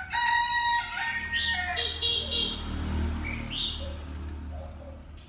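Oriental magpie-robin singing: a quick run of clear whistled notes and short rising sweeps in the first two seconds, then a few scattered shorter notes. A low rumble sits underneath around the middle.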